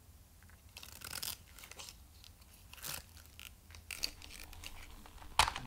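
Small flathead screwdriver prying at a plastic retaining clip on a Honda CR-V dashboard A/C vent: a few short scrapes and crunches of metal on plastic, then a sharp click near the end.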